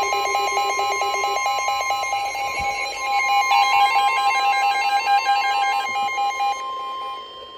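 NOAA Weather Radio alert: the steady 1050 Hz warning alarm tone sounds together with a weather radio receiver's rapid electronic alarm beeping, several tones at once. This signals that a warning message is about to be broadcast. Near the end the beeping stops, leaving the steady tone.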